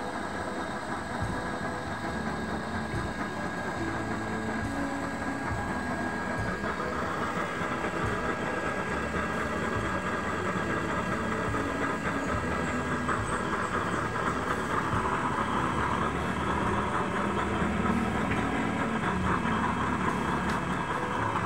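Homemade used-oil burner burning steadily with a blue flame, giving a low rumble. A hissing edge grows stronger about a third of the way in.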